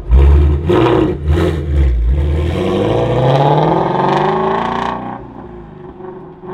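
Ford Shelby GT350's 5.2-litre flat-plane-crank V8 breathing through a Corsa X-pipe with the resonators deleted: a few sharp, loud throttle blips, then the engine note climbing steadily in pitch for about three seconds before falling away suddenly to a quieter engine sound.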